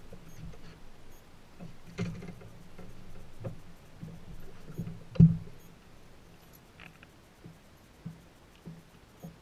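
A series of scattered knocks and thumps over a faint low hum, the loudest a sharp thump a little past five seconds in.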